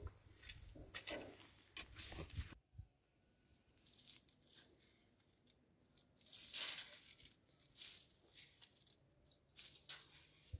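Soft, scattered crunching and rustling of footsteps on dry straw and loose, freshly dug earth, a few faint steps and scuffs spread over several seconds.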